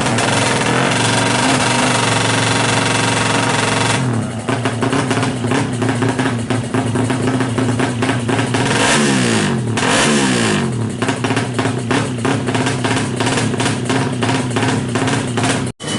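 Suzuki Smash's single-cylinder four-stroke motorcycle engine, bored to 130cc and running through an open racing exhaust. It is held at steady revs, then about four seconds in drops to a choppy, uneven idle, with a quick rev blip around the middle.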